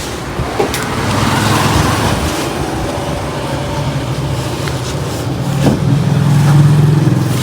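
Road traffic: a motor vehicle's engine running steadily, growing louder near the end as it passes close by.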